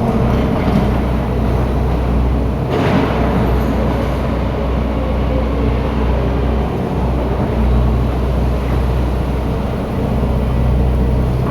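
Heavy machinery engine running steadily at a constant speed, with a brief rush of noise about three seconds in.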